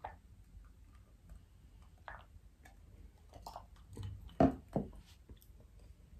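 Quiet mouth sounds of drinking and swallowing from a glass of iced water, then two sharp knocks a little over four seconds in as the glass is set down on the table.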